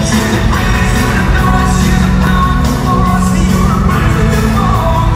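Loud pop-rock song with a singer.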